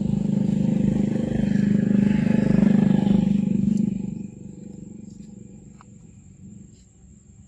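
An engine running with a steady low hum that cuts off sharply about four seconds in, leaving faint background sounds.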